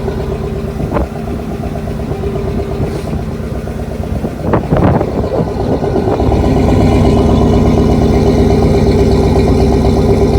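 Ford 351 Windsor V8 running through Flowmaster Super 10 mufflers with no catalytic converters, just after a below-zero cold start. It runs steadily, with a couple of short sharp sounds about a second in and around four and a half seconds, then gets louder and deeper from about six seconds in.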